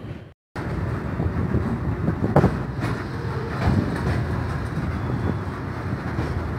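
Freight train of loaded ballast hopper wagons rolling past, a steady rumble with occasional knocks of wheels over the track. The sound cuts out for a moment just after the start.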